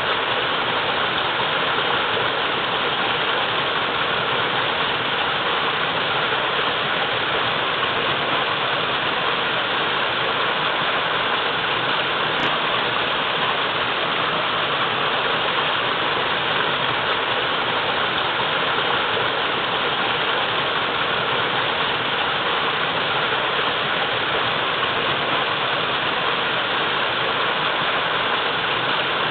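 Waterfall, water pouring and splashing in a steady, even rush.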